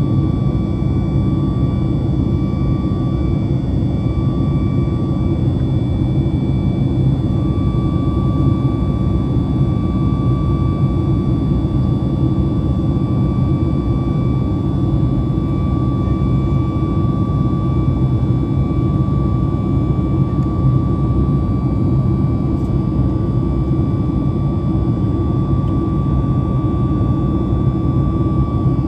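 Jet engine and airflow noise inside the cabin of a Boeing 737 MAX 9, its CFM LEAP-1B turbofans running steadily. A loud, even low rush with thin steady whining tones over it.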